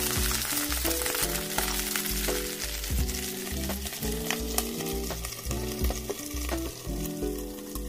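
Rice pakoras deep-frying in hot oil in a steel kadhai, sizzling steadily, with a few clinks of a slotted steel spoon against the pan as they are turned.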